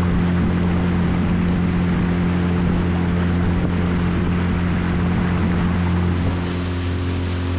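Boat motor running steadily with an even low hum, dropping slightly in level about six seconds in.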